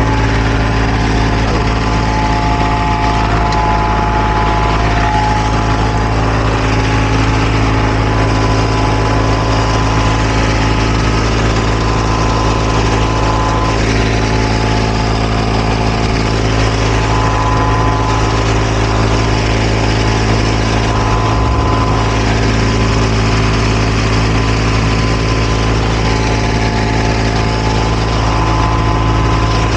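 Diesel engine of asphalt paving equipment running steadily at constant speed.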